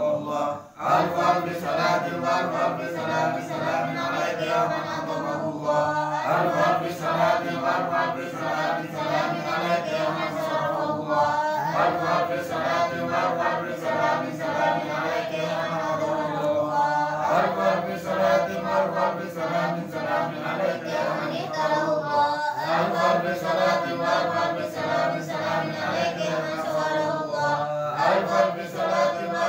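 A group of men chanting the sholawat in Arabic together from booklets. The chant runs in phrases of about five to six seconds with brief pauses between them.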